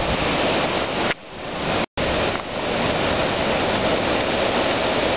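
Strong hurricane wind rushing and buffeting the microphone. It dips briefly about a second in and cuts out for an instant just before two seconds in, then comes back just as strong.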